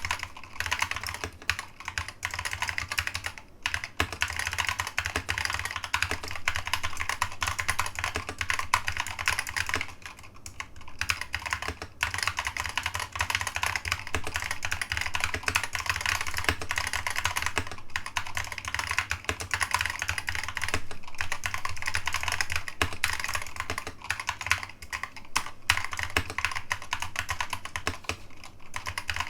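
Continuous fast typing on a mechanical keyboard with new-old-stock SKCC green switches, a dense run of key clicks with a brief lull about ten seconds in. A steady low hum sits underneath.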